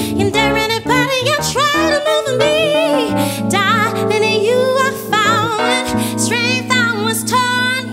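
A female soul singer's wordless melismatic runs with wide vibrato over sustained piano and keyboard chords.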